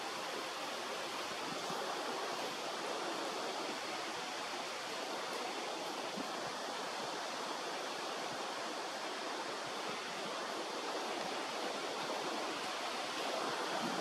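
Steady outdoor rushing noise, an even hiss with no distinct calls or events; the kookaburra is silent.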